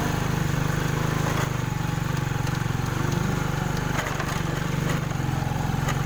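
A small vehicle's engine running steadily while driving down a rough, rocky dirt road, with a few knocks and rattles from the bumps.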